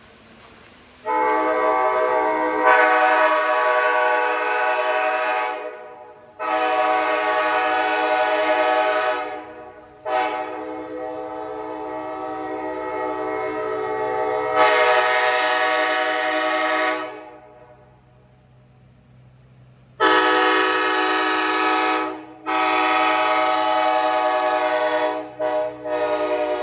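Nathan AirChime K5HA five-chime train horn, a mixed set of sandcast and later bells, blown on compressed air in a series of long chord blasts separated by short gaps. One long blast starts softer and swells louder partway through, and two quick toots come near the end.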